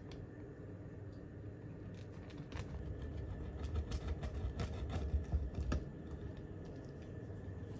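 Scattered light clicks and taps, with a run of dull low knocks in the middle few seconds, over a faint steady hum.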